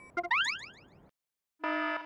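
Cartoon sound effect: a few short tones, then a quick rising glide in pitch that fades within the first second. After a short silence, a steady pitched tone comes in near the end.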